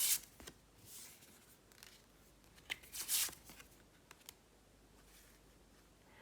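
Tarot cards being handled: a few short swishes of cards sliding against each other, the loudest right at the start and about three seconds in, with light clicks and taps between.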